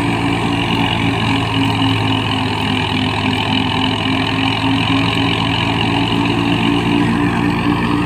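Tractor-driven wheat thresher running steadily under load as wheat sheaves are fed in: the tractor engine's even hum with a regular throb, under the threshing drum's dense whirring rush.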